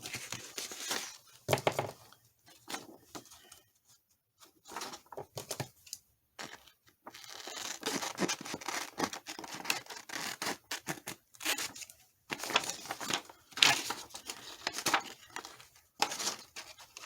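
Scissors cutting thin copy paper, in irregular runs of snips with short pauses between them.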